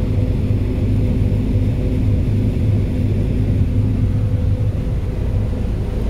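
John Deere 9560 STS combine with a 693 corn head harvesting corn at high throttle, heard from inside the cab: a steady, loud drone of the diesel engine and the separator running together.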